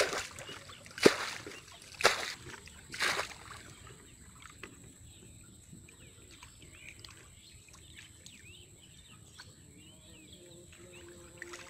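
Water sloshing and splashing as a plastic bucket bails out a shallow muddy pool: four scoops about a second apart. After that it goes quiet, with faint small-bird chirps.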